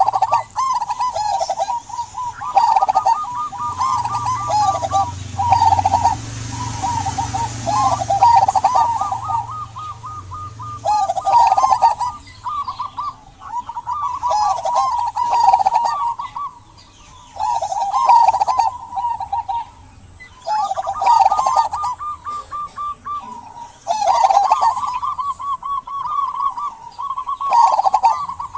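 Zebra dove (local perkutut) singing its cooing song: bouts of quick, trilled, bubbling coos a second or two long, repeated every few seconds.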